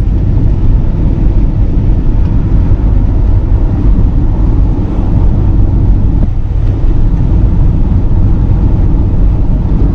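Steady low rumble of a camper van cruising on a motorway, heard from inside the cab: engine, tyre and wind noise.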